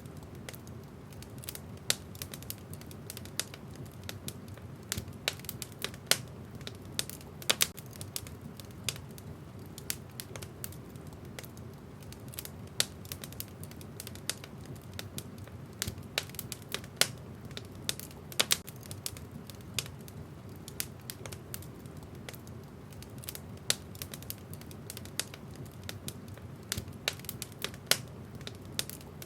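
Wood fire in a fireplace crackling: irregular sharp pops and snaps, a few much louder than the rest, over a steady low rumble of the burning.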